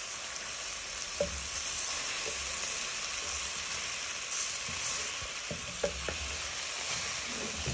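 Onion, garlic, mushrooms and green pepper sizzling in oil in a frying pan, a steady hiss, as dry white rice is tipped in. A few light knocks of a wooden spatula against the pan.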